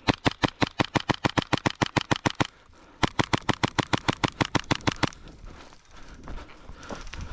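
Airsoft replica firing on full auto: two long bursts of about ten shots a second, the first lasting about two and a half seconds and the second about two, with a half-second pause between them.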